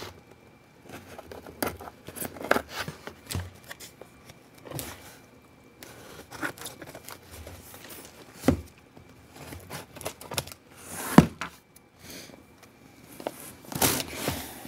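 Scissors cutting the packing tape on a cardboard box, with tape tearing and cardboard scraping. Scattered knocks from handling the box, the sharpest about eight and a half and eleven seconds in.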